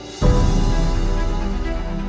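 Background music over drone footage: a quiet ambient passage swells into a loud, full section with a heavy bass about a quarter second in.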